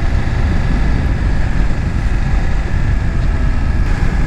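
Steady wind rush on the rider's microphone while riding a BMW F900XR motorcycle, with the bike's parallel-twin engine running at an even cruise underneath.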